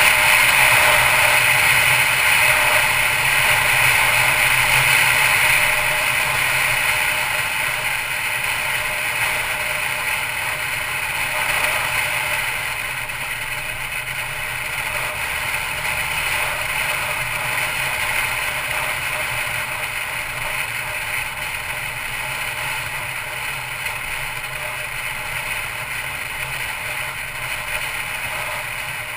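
Steady road and wind noise of a 2012 Mercedes-Benz C250 Coupe driving at road speed, a continuous hiss that is louder for the first several seconds and then settles a little lower.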